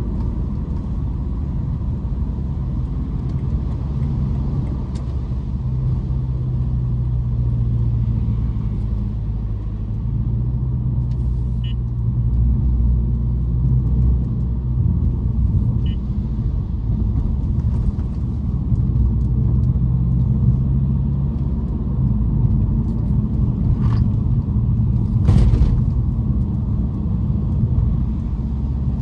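BMW M550i's twin-turbo V8 and its tyres giving a steady low rumble while driving, with a brief sharp knock about three-quarters of the way through.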